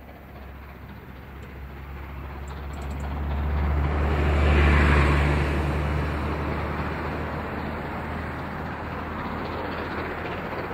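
A vehicle passing close by: a low engine rumble swells to its loudest about halfway through, then eases back to a steady hum.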